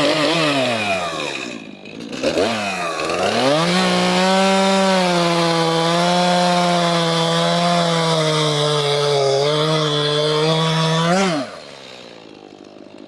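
Stihl MS251 two-stroke gas chainsaw revving up, dipping briefly about two seconds in, then held at high revs while cutting through wood, its pitch sagging slightly under load. The revs drop away about eleven seconds in as the cut ends.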